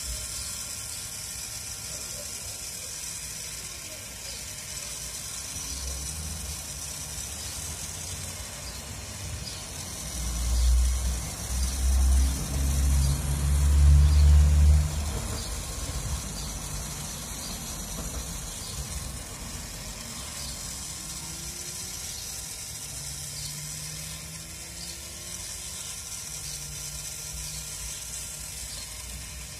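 Rotisserie motor turning a spit, with faint regular clicking from its gears over a steady hiss. About ten seconds in, a loud low rumble swells for about five seconds, then fades.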